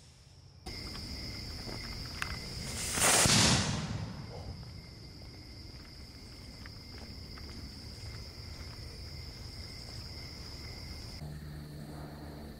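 Crickets chirping steadily, with a firework's rushing hiss swelling and fading about three seconds in.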